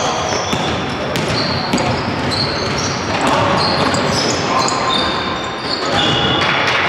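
Basketball game in an echoing sports hall: a ball bouncing on the court, many short high squeaks of shoes on the floor, and players' voices and shouts.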